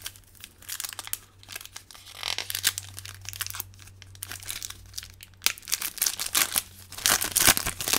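Foil wrapper of a Topps trading-card booster pack crinkling and tearing as it is pulled open by hand, the crackling louder and denser in the last couple of seconds.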